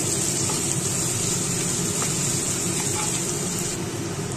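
Chopped onions and green chillies sizzling in hot oil in a nonstick pan, stirred with a wooden spatula, with a few light taps of the spatula against the pan. The sizzle is steady, its high hiss dropping a little near the end.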